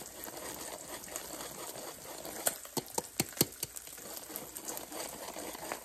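Old hand-crank metal flour sifter being turned, its blades scraping flour through the mesh with a light scratchy rattle. A quick run of sharp clicks comes about two and a half to three and a half seconds in.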